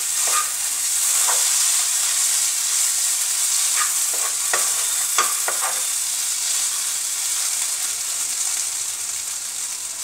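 Diced vegetables sizzling in a hot non-stick frying pan, with a steady high hiss. A wooden spatula scrapes and taps the pan several times in the first half or so as they are stirred.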